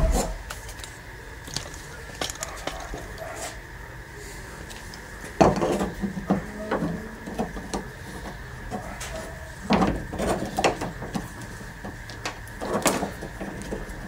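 Scattered clicks, knocks and rattles of car door handle parts and clips being handled and fitted into a Toyota Previa's front door, in small bunches with pauses between.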